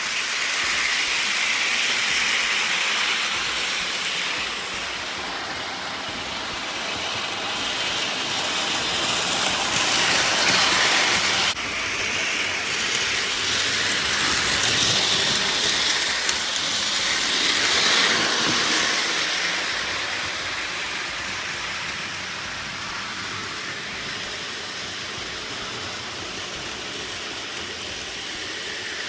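Electric model trains running on their track, a steady whirring rattle of motors and wheels that swells and fades as the trains come near and move away, with a sudden small drop about eleven seconds in.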